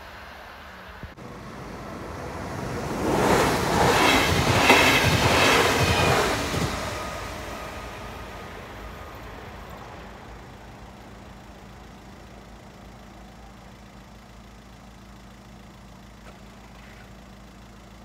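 A train passing by. It builds up about two seconds in, is loudest for about four seconds, then fades away into a faint steady background.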